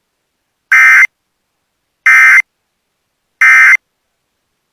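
Emergency Alert System end-of-message data tones from NOAA Weather Radio: three short, harsh bursts of warbling digital tones about 1.3 seconds apart, signalling the end of the alert broadcast.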